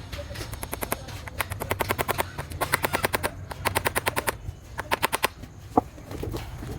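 Rapid runs of hammer blows on nails being driven into the shed's vertical poles, about ten sharp strikes a second with short pauses between the runs. One louder single knock comes near the end.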